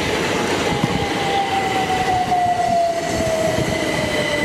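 Train running through the station, with a clear whine falling slowly in pitch and a steady higher tone over a low rumble.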